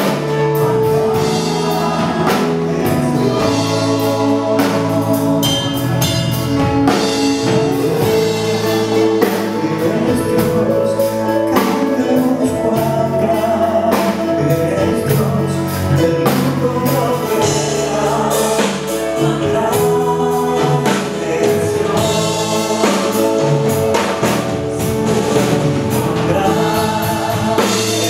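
Live worship band playing a gospel song: several singers on microphones sing together over keyboard, electric guitar and drums.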